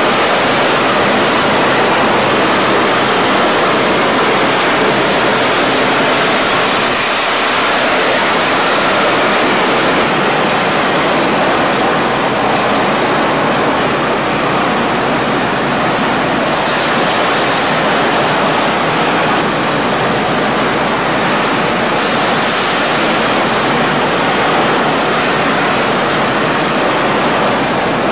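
Ultra-high-pressure water jet of an overhead hydrodemolition robot blasting concrete off a tunnel ceiling: a loud, steady rushing hiss of spray.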